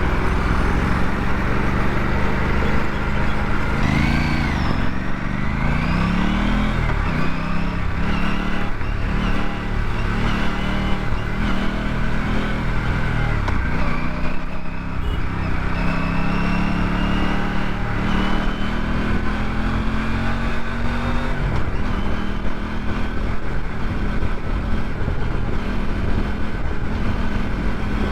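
Aprilia RS 457 parallel-twin engine under way on the road, its pitch rising and dropping several times in a row as it revs through the gears, then holding steadier with slow climbs in the second half. A steady low rush of wind runs under it.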